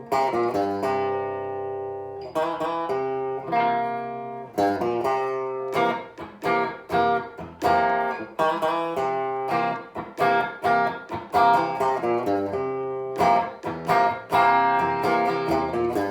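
Maestro (Gibson) EA250T electric guitar played through its bridge pickup: picked notes and chords follow one another quickly, each ringing briefly before the next.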